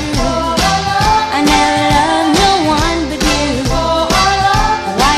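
Background pop music with a steady beat and a gliding melody line.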